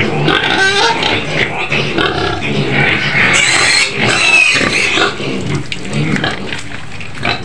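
A pen of young white pigs grunting and squealing as they jostle and root at feed on the floor, with higher, sharper squeals about three to four seconds in.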